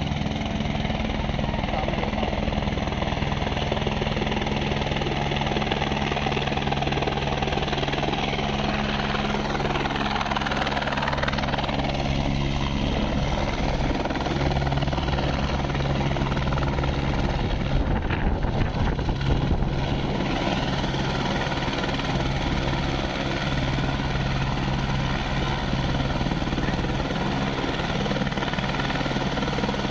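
Helicopter flying in, setting down on a helipad and running on the ground with its rotors turning: a steady, loud engine-and-rotor sound. There is a couple of seconds of gusty buffeting just past the middle.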